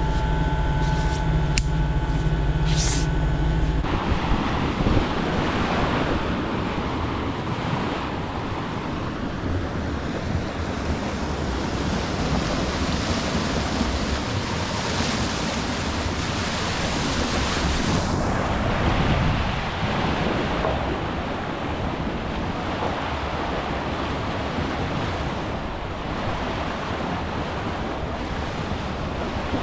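Wind on the microphone and water rushing along a sailboat's hull as it moves over calm water. For the first few seconds a steady machine hum is heard from below deck, with a couple of clicks, before it cuts off sharply.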